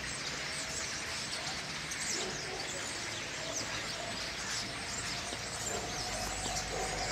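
A large flock of common starlings perched in a tree, many birds chattering, chirping and whistling over one another in a continuous din. It is a flock gathering for its autumn migration.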